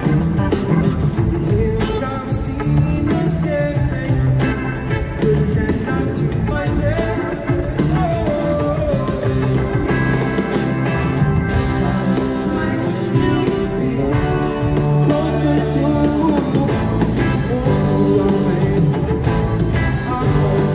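A rock band playing live, with singing and electric guitar.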